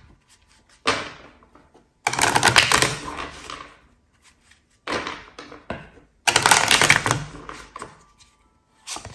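A deck of tarot cards being riffle-shuffled by hand: four riffles, each a second-or-two burst of rapid card flicks that trails off, then a short fifth one near the end.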